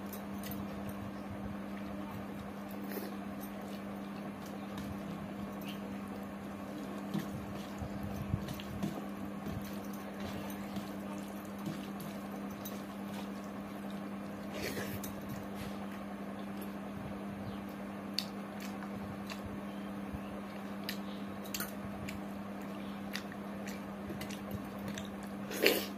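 Eating by hand: rice and dal squished and mixed with the fingers on a steel plate, with chewing and scattered small clicks, over a steady low hum. A single sharp clack near the end is the loudest sound.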